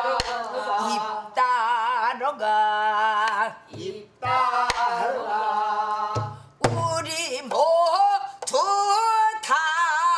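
A woman singing a Korean new folk song (sinminyo) in traditional style, long held notes bending and wavering in pitch, with a few sharp strokes of a buk barrel drum struck with a stick.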